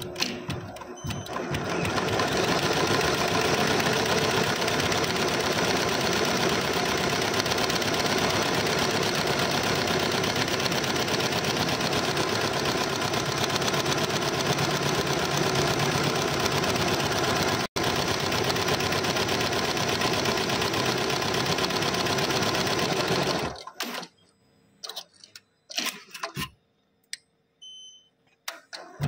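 Richpeace computerised embroidery machine stitching at speed, a steady dense mechanical clatter of the needle head, that stops about three-quarters of the way through. Scattered short clicks and whirs of the machine follow.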